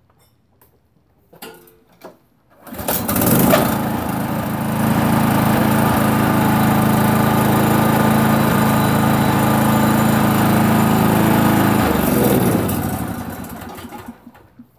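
Small vertical-shaft gasoline lawn-mower engine on a homemade pitching machine starting: two short sounds about 1.5 and 2 seconds in, then it catches about 3 seconds in and runs steadily, driving the pitching wheels. About 12 seconds in it is shut off and winds down, falling in pitch, to a stop near the end.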